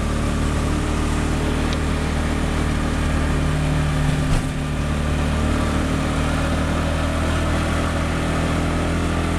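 Auto-rickshaw engine running steadily while the rickshaw is under way, heard from inside the cab, with a single knock about four seconds in.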